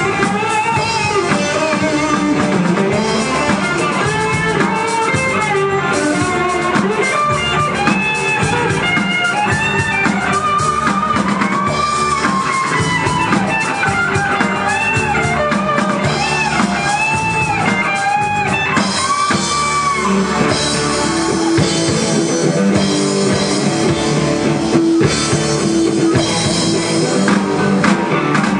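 Live rock band playing with electric guitar and drum kit. Through the middle a lead melody of bending, sliding notes rides above, giving way to steadier held notes in the last part.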